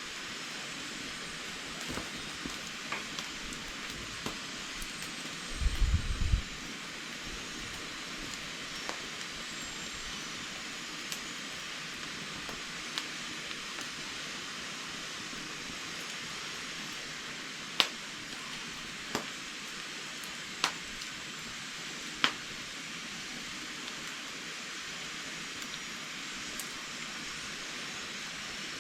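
Wood fire in a firebox, hissing steadily with scattered small ticks and pops and a quick run of four louder snaps past the middle. A brief low rumble comes about six seconds in.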